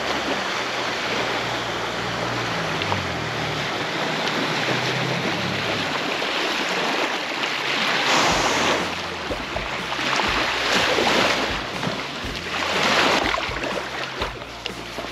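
A fishing boat's outboard motor runs low and shifts in pitch as it comes in, going quiet about six seconds in. Then the boat's wake washes up onto the beach in several loud surges, over a steady hiss of lapping water.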